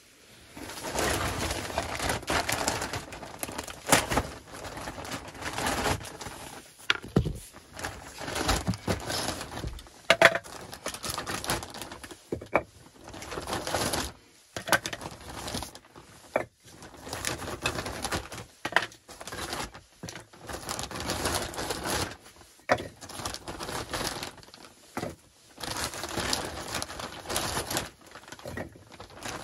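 Plastic sack of split firewood rustling and crinkling as it is handled, with irregular knocks of wooden blocks set down on a stone floor.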